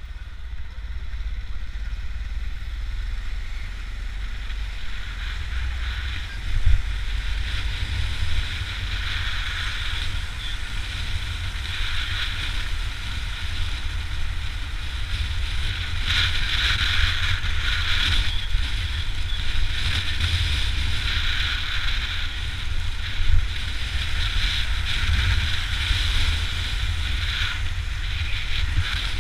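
Wind rushing over the microphone of a camera on a moving motorcycle, with the motorcycle's engine running as a low rumble underneath; the rush swells and fades as the bike rides along, with a couple of brief louder thumps.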